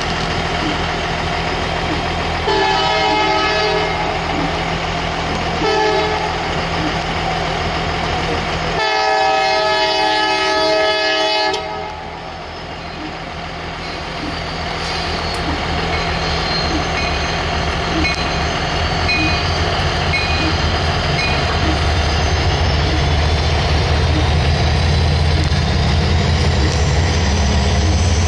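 CSX diesel freight locomotive sounding its horn in three blasts, the last and longest lasting about three seconds. The locomotive's diesel engine rumble then grows louder as it passes, with a high whine rising slowly near the end.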